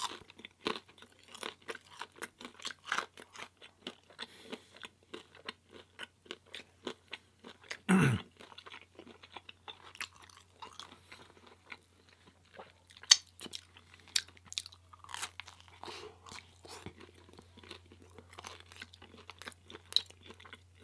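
Close-miked chewing and crunching of pizza: a dense run of quick mouth clicks and crunches, with one louder low sound about eight seconds in.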